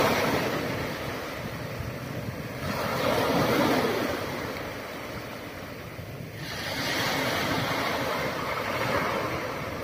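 Sea waves breaking on a beach: a steady wash of surf that swells and falls back in slow surges every few seconds, with wind on the microphone.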